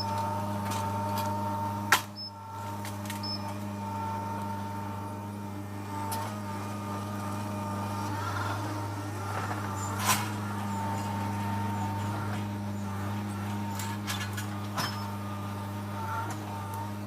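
Skid steer engine running steadily while pulling out tree stumps and roots, with a few sharp knocks, the loudest about two seconds in and another around ten seconds in.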